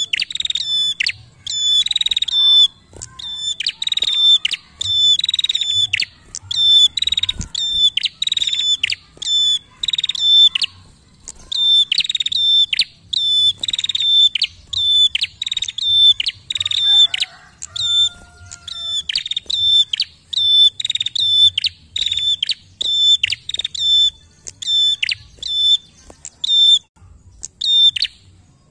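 Prenjak calling in a fast, repeated series of sharp high notes, about two a second, with bursts of scratchy chatter between them. The calls break off briefly near the end.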